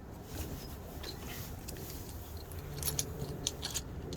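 Faint clicks and light rattling of small hand tools being handled, with a few sharper clicks about three seconds in.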